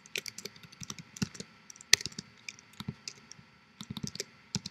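Typing on a computer keyboard: irregular runs of quick keystrokes with short pauses, one sharper key strike about two seconds in.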